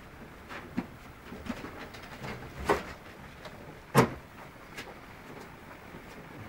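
Newborn puppies about a week and a half old nursing, giving short scattered squeaks and grunts; the two loudest come about two and a half and four seconds in.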